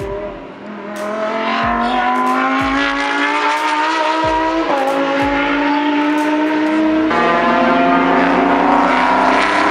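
Race car engines accelerating hard out of a corner, their pitch climbing steadily and dropping sharply at upshifts about halfway through and again about two thirds in. The sound grows louder about a second in as the pack of cars comes on.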